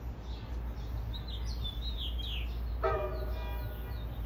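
Short horn blast from an approaching NJ Transit train about three seconds in, with birds chirping before it and a steady low rumble underneath.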